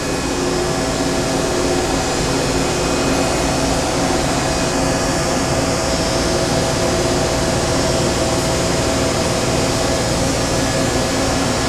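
Steady whirring hum of a powered-up Okuma MA-50HB CNC horizontal machining center, heard inside its open electrical cabinet, with a few steady tones over an even hiss.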